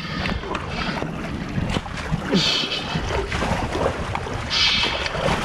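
Shallow lagoon water sloshing and splashing close around a camera held at the surface, with wind on the microphone. There are two louder splashes, about two and a half and five seconds in.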